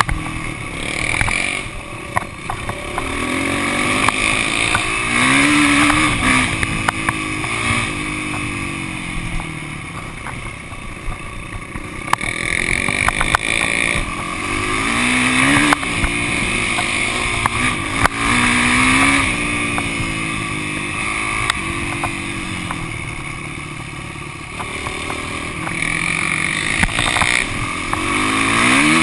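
Yamaha YZ450F's single-cylinder four-stroke engine running at riding speed, its revs rising and falling several times with throttle and gear changes, over wind noise and scattered sharp clicks from the gravel road.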